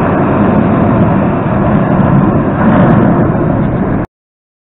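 Metro train running out of the station into the tunnel, a loud, dense rumble of wheels on rail echoing off the vaulted platform. The sound cuts off suddenly about four seconds in.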